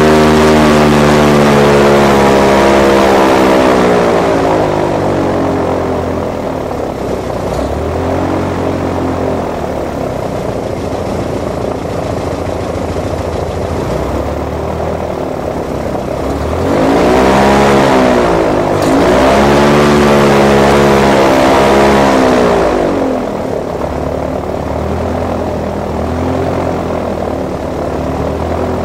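Airboat engine and propeller heard from on board. It runs hard for the first few seconds, then eases off. About two-thirds of the way through it is throttled up twice, the pitch rising and falling each time, before settling back.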